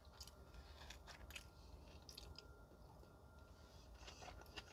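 Faint chewing with the mouth closed: a few soft, scattered mouth clicks and smacks.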